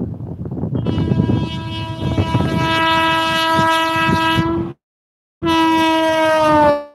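Electric locomotive's horn sounding a long, loud blast over the low rumble of the passing train. The sound cuts out abruptly for a moment about two-thirds of the way through. The horn then resumes and drops slightly in pitch as the locomotive goes past.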